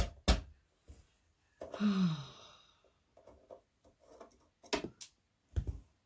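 Sharp clicks and knocks of a screwdriver and hands working on a desktop computer case, two at the start and more near the end with a dull thump. About two seconds in, a sigh of effort that falls in pitch.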